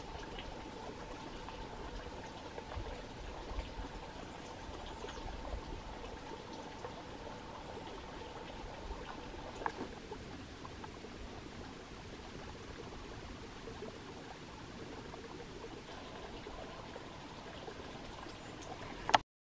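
Water trickling steadily and faintly. Near the end there is one sharp click as the sound cuts off.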